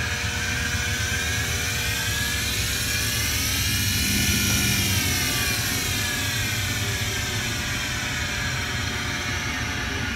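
Hardinge DSM 59 precision turret lathe running, its variable-speed spindle drive whining over a steady hum. The whine rises in pitch as the spindle speed is turned up, peaks about halfway, then falls as the speed comes back down.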